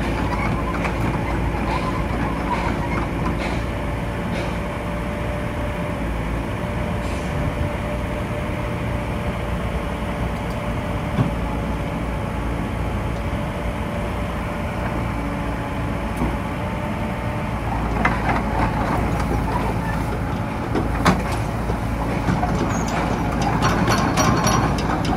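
Komatsu PC78US-6 midi excavator's diesel engine running steadily under load, with a steady whine over the low rumble. Late on, the steel tracks clank and knock as the machine travels.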